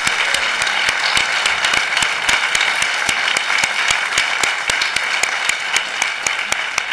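Applause from a large crowd, many hands clapping at once, beginning to fade near the end.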